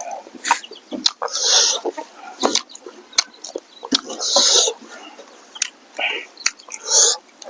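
A person eating close to the microphone: wet chewing and lip-smacking on smoked pork, with sharp clicks and short noisy bursts every second or so.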